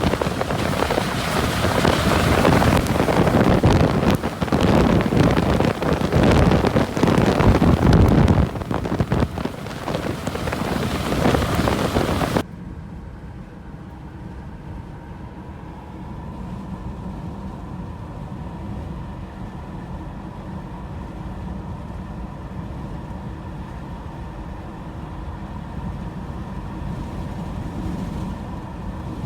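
Strong gusty wind buffeting the microphone for about the first twelve seconds, then cutting off suddenly to the quieter, steady low hum of a vehicle driving, with a faint steady whine.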